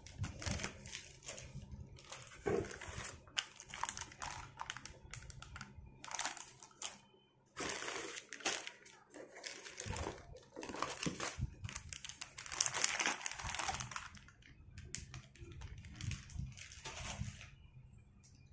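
Clear plastic wrapping crinkling and rustling in irregular bursts as mixer-grinder jars are handled and taken out of a cardboard box. It dies down in the last couple of seconds, over a faint steady low hum.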